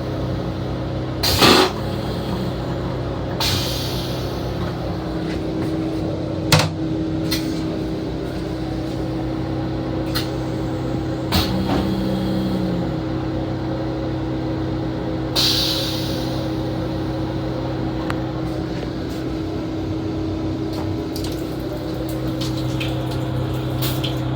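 Interior noise of a Long Island Rail Road M7 electric railcar heard from inside its restroom: a steady hum with sharp knocks and rattles every few seconds and a few short hisses.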